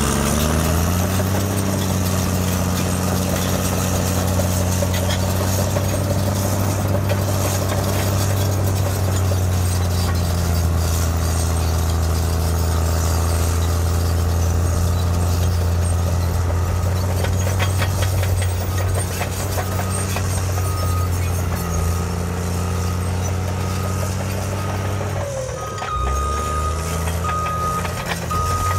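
Caterpillar D7R Series 2 bulldozer's diesel engine working under load. It revs up at the start, then holds a steady deep drone as it pushes dirt. About 25 seconds in, the engine note dips and climbs again as the dozer changes direction, and a reversing alarm beeps steadily through the end.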